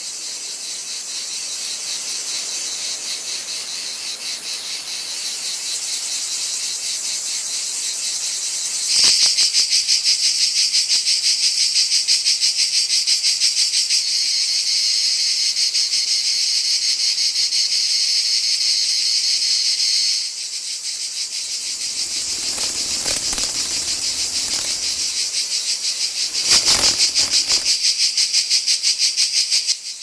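Cicadas singing in a continuous high, rapidly pulsing buzz. A louder, closer cicada song joins about nine seconds in and drops out around twenty seconds, and another loud one starts shortly before the end.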